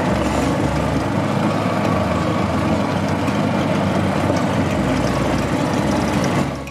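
Gas golf cart's engine running steadily as the cart drives along a gravel path, with tyre and road noise, fading out near the end.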